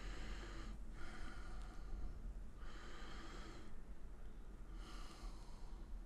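A man breathing audibly through his nose, about four long breaths, over a faint steady low hum.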